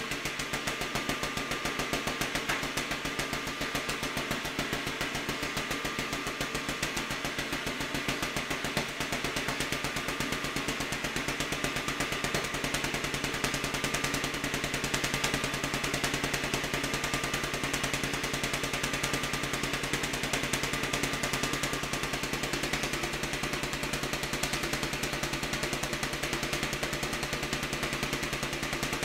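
Vacuum tube Tesla coil running in staccato mode, its sparks from the topload snapping in a rapid, even train of sharp cracks.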